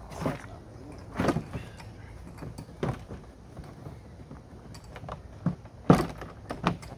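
Plastic folding-kayak hull sheets being folded and tucked by hand: irregular scraping and knocking, about five separate knocks, the loudest near the end.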